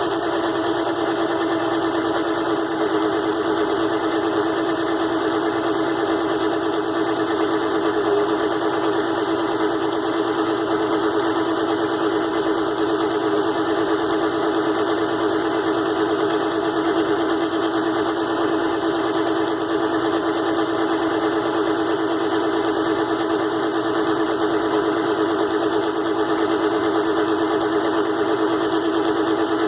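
6-in-1 mini lathe running steadily under its small DC motor, a constant hum with a strong mid-pitched tone, while it turns an aluminium part.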